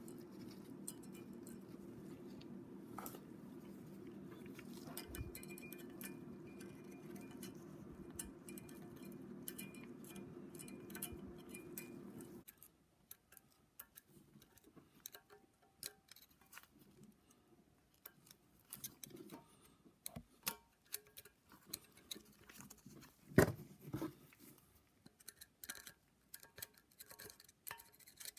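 Faint small metal clicks and ticks of a pick and valve keepers against a valve spring compressor on a cylinder head, as the keepers are set on a valve. The sharpest click comes about 23 seconds in. A steady low hum runs underneath and cuts off suddenly about 12 seconds in.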